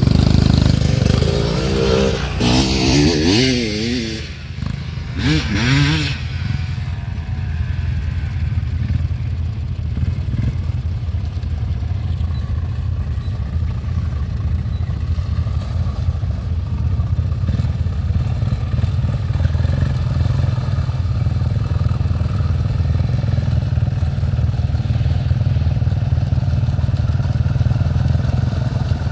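ATV engine working through a mud hole, its pitch rising and falling with the throttle for the first six seconds. It then settles into a steady low running note.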